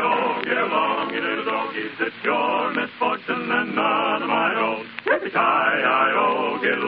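Male voices singing held, wavering notes on an old radio-show recording.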